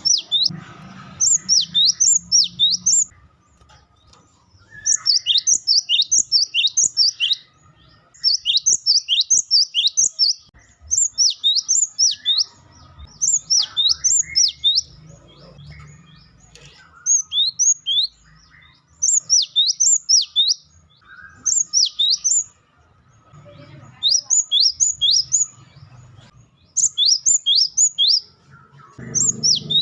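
Cinereous tit (gelatik batu) singing its rapid wucitan song: short bursts of high, quick notes that each slide down in pitch, several to a burst, repeated every two to three seconds.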